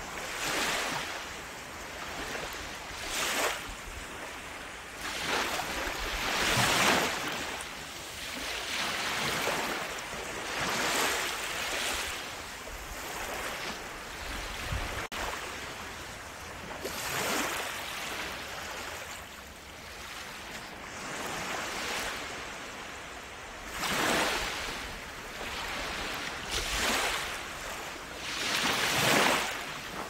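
Sea waves washing in, one swell after another every two to three seconds.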